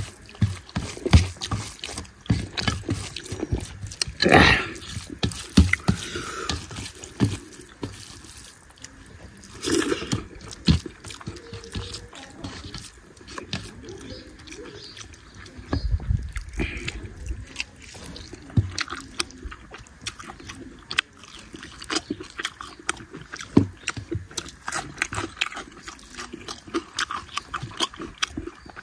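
Wet eating sounds: fingers squishing and mixing rice with chicken curry, with lip smacking and chewing of chicken leg, a dense irregular run of small wet clicks and squelches.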